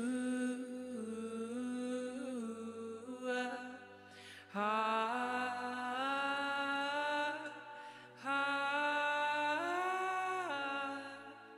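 A woman singing slow, drawn-out phrases of long held notes over a steady sustained keyboard pad, with short breaths between phrases about four and eight seconds in.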